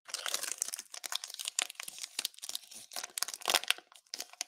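Foil wrapper of a Panini Select trading-card pack being torn open and crinkled by hand: a dense run of crackling and tearing, with louder crackles around the middle and about three and a half seconds in.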